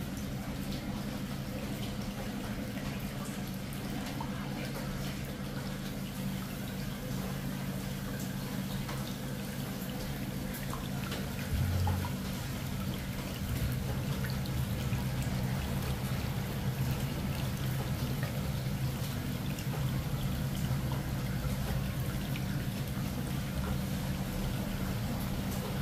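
Water pouring and trickling steadily, with a low steady hum underneath and a brief low bump about twelve seconds in.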